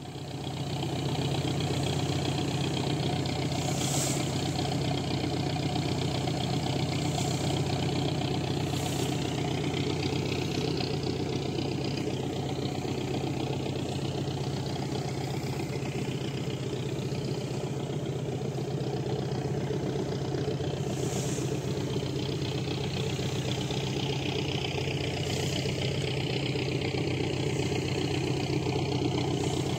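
Fishing boat's engine running steadily as the boat travels, with water rushing past the hull.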